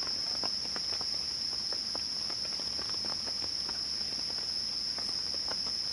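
Forest crickets or similar night insects shrilling in a steady, unbroken high-pitched chorus, with faint scattered ticks beneath it.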